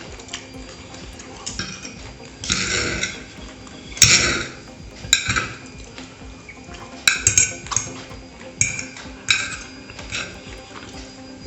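Eating sounds from cutlery on a plate: a series of short scrapes and clinks, some under a second long, coming every second or so.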